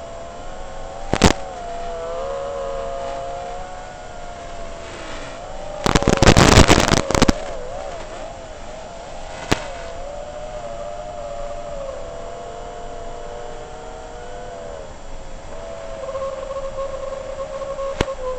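FPV freestyle quadcopter's electric motors whining, the pitch rising and falling as the throttle changes. Loud short bursts of noise cut in about a second in, for about a second and a half around the middle, and briefly twice more.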